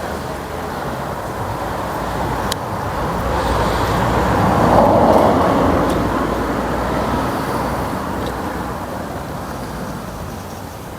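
A vehicle passing by, a steady rushing noise that grows louder to a peak about halfway through and then slowly fades away.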